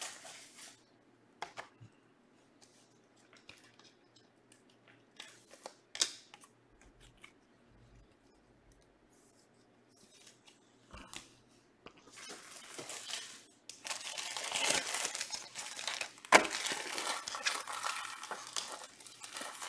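Scattered light clicks and handling, then, about twelve seconds in, trading-card pack wrappers being torn open and crinkled in a near-continuous crackle, with a sharp loudest snap a few seconds later.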